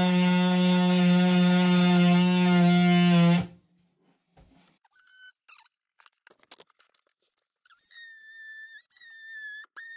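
Cordless oscillating multi-tool running at a steady pitch as its blade cuts the kitchen plinth, stopping suddenly about a third of the way in. A few faint clicks follow, then a quieter thin high whine in short spells near the end.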